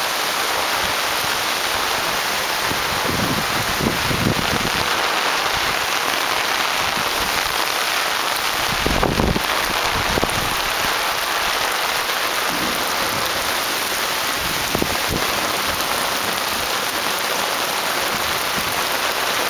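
Heavy rain pouring steadily onto grass and a flooded concrete path, with a few dull low thumps about four seconds in and again about nine seconds in.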